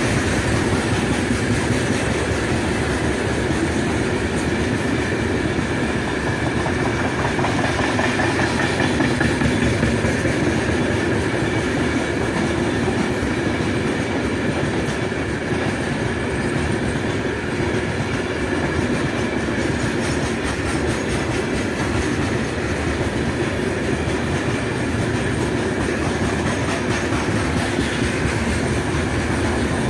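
Heavy freight train of open-top gondola wagons (57 wagons, 5772 tonnes) rolling past at speed: a steady, loud running noise of steel wheels on the rails.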